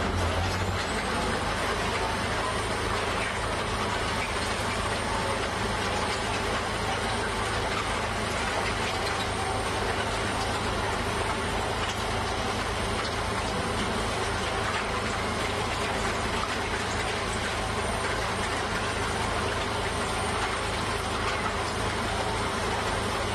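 Diesel engine of a tracked piling rig running steadily, with a constant mechanical drone.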